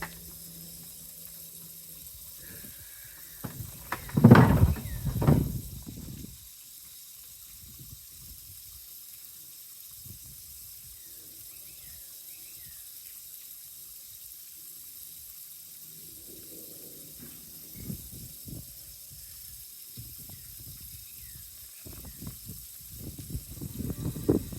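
Wind buffeting the microphone outdoors, a steady hiss with loud low rumbling gusts about four seconds in and again near the end.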